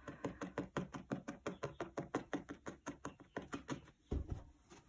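A felting needle stabbing wool fibres through felt into a foam mat in quick, even taps, about six a second. The tapping stops just before the end, followed by a single dull thump.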